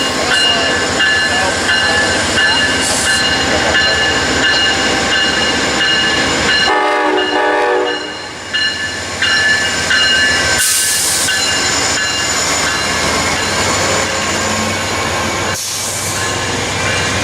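Train passing on the tracks, with steady high-pitched wheel squeal throughout and a short horn blast about seven seconds in.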